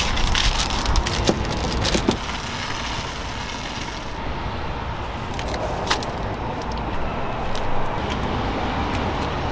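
Street ambience dominated by passing traffic noise, with a few sharp clicks in the first couple of seconds.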